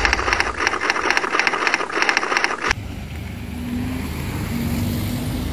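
A short pulsing sound effect over a logo card, cut off abruptly about two and a half seconds in, followed by outdoor roadside noise with a vehicle engine running and a faint steady hum.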